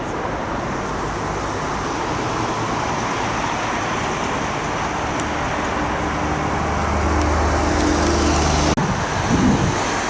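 Jet airliner engine noise on approach to land: a steady roar that slowly grows louder, with a low hum in its second half and a sharp click about nine seconds in.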